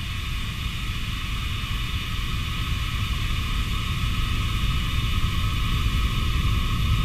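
Low rumbling suspense drone with a steady hiss above it, slowly growing louder.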